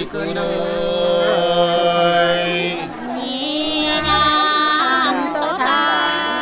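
Unaccompanied Nùng sli folk singing: a man's voice holding long, drawn-out notes, then about three seconds in a woman's voice takes up the song on a higher pitch.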